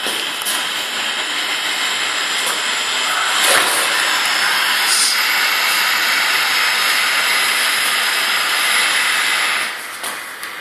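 Nile monitor lizard giving a long, loud, steady hiss, a defensive threat display while it is held down with a stick; the hiss stops suddenly near the end.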